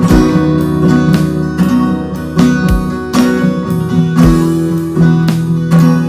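Instrumental worship music: an acoustic guitar strums steadily, about two strokes a second, over sustained chords, with a low beat every second and a half or so.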